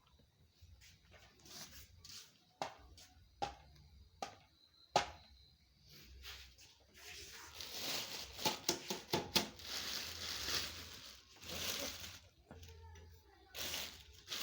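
Packaging being opened and handled: a few sharp knocks, then about four seconds of crinkling and tearing, with more rustling near the end.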